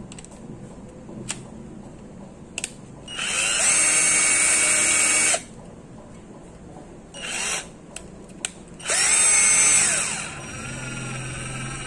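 Bossytoo 12V cordless drill's motor spinning a flexible shaft extension in the chuck, in three trigger pulls: a run of about two seconds that whines up to speed and holds, a short blip, then a run of about a second and a half that winds up and back down. A few light clicks come before the first run.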